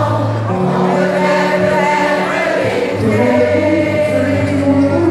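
Live country-rock band playing, with several voices singing together over electric and acoustic guitars and held low bass notes that change about half a second in and again near the three-second mark.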